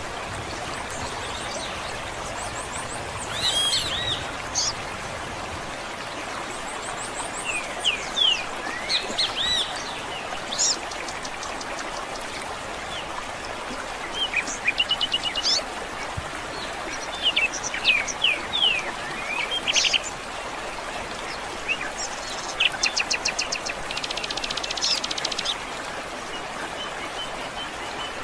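Several wild birds chirping and calling in short whistles and quick trills, some rising and falling, over a steady background hiss.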